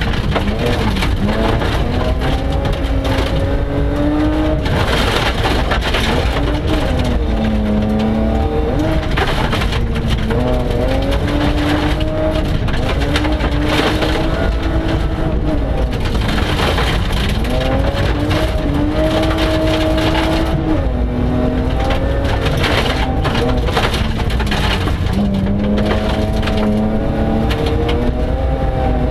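BMW 325 Group H rally car's engine at full throttle, heard from inside the cabin. It climbs in pitch through each gear and drops back at every upshift, several times over. Gravel crackles and pings against the car's underbody throughout.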